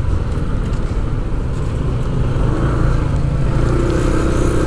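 Motor vehicle engine running steadily, a low hum over road and traffic noise.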